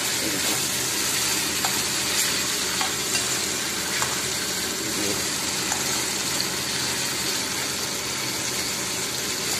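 Cauliflower florets and tomato frying in oil in a kadai, sizzling steadily. A slotted steel spatula stirs them, with a few light clicks against the pan.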